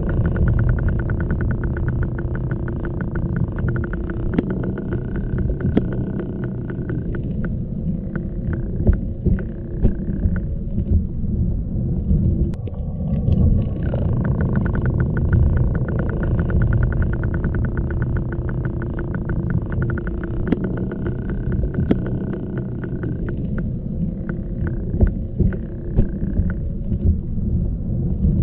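Low, steady, motor-like rumble with humming tones and a fast, even ticking. The same stretch of sound repeats about every 14 seconds.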